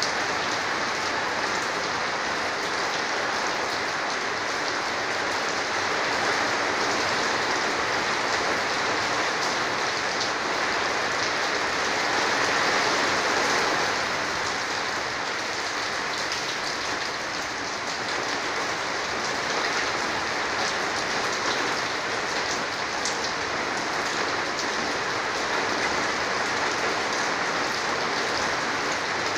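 Heavy storm rain pouring steadily onto a corrugated metal roof, swelling slightly about twelve seconds in.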